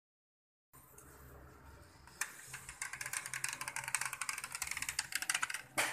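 Small plastic pieces of a Hexbug toy and domino set clattering: fast, uneven clicks and rattling that start about two seconds in and stay dense to the end.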